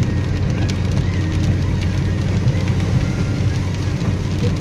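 Steady low rumble of a car driving on a wet highway, heard from inside the cabin: engine and tyre noise with a constant hum and faint scattered ticks.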